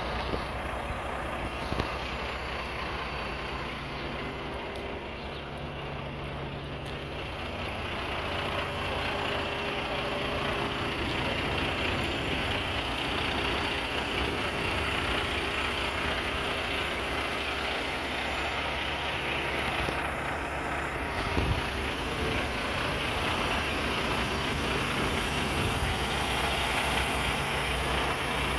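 Heavy diesel engines of garbage trucks running steadily, with a constant hum. A single short knock comes about two-thirds of the way through.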